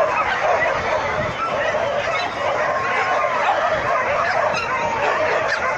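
Many dogs barking and yelping at once, a dense, continuous chorus of overlapping calls.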